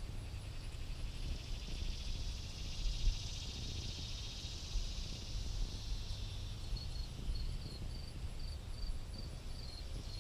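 Wind rumbling on the microphone under a high, buzzing insect drone that swells and then fades over the first half. About two-thirds of the way in, a steady run of short high chirps starts, about three a second.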